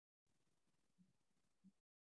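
Near silence: faint room tone that cuts in and out, with two faint, short low sounds about a second in and near the end.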